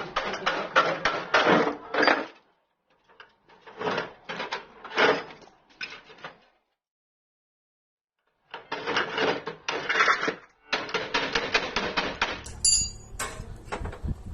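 Hammer striking steel in quick blows, several a second, in three runs with short breaks between them. Music comes in near the end.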